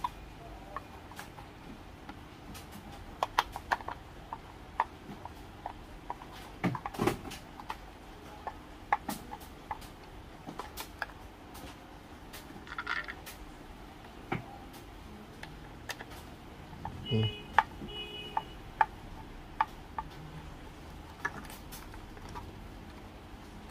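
Small plastic and metal handling noises while a plastic rain hood is screwed onto a bullet-style Wi-Fi security camera: scattered light clicks and taps of the parts and small screws, and a screwdriver turning the screws in. There is a short squeak about three quarters of the way through.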